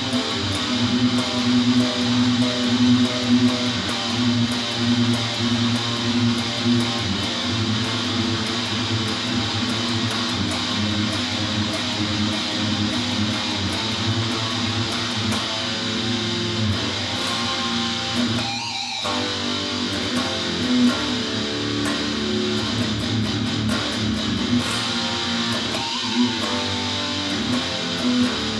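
Heavy guitar music: a guitar strummed steadily through a slow, sustained instrumental piece.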